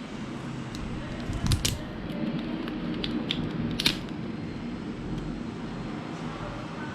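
Light clicks and ticks of a thin plastic membrane keypad being pressed and repositioned on a plastic bike console by hand, a few sharper ticks standing out around the middle, over a low steady background hum.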